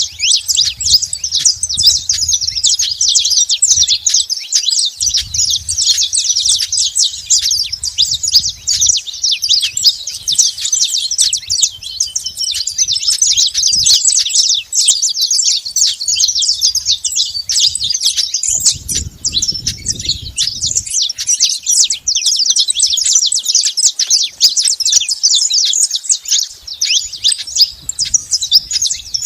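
Saffron finches (canário-da-terra) singing: a dense, continuous stream of high, rapid chirps and trills, several birds at once.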